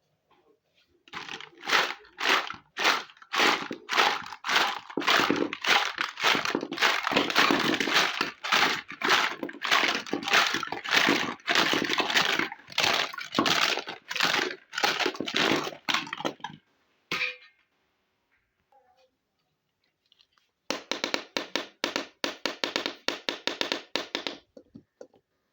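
Toy packaging being handled and opened by hand: a long run of rapid crinkling and crackling, a single sharp click after it, then a short pause and a few more seconds of crinkling.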